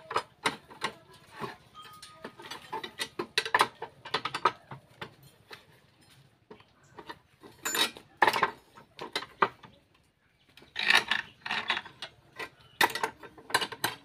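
Thin steel reinforcing rod being bent by hand into column stirrups on a bar-bending jig: irregular metallic clicks and clanks as the rod is levered round the pins, with a few longer rattles about 8 and 11 seconds in.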